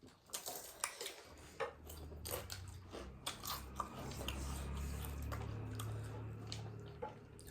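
Close-up eating sounds: chewing and biting with irregular small mouth and utensil clicks, over a low hum that sets in about a second in.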